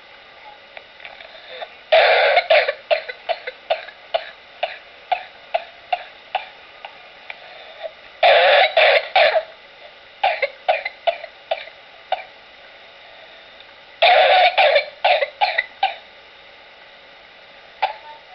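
Paroxysmal coughing from whooping cough (pertussis): three coughing fits, each opening with a loud run of coughs and trailing off into a string of shorter, weaker coughs that slow down, with pauses of several seconds between fits.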